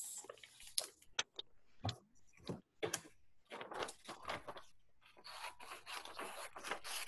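Paper being handled and cut with scissors: scattered rustles and clicks at first, then from about five seconds in a dense run of rapid paper-cutting and rustling.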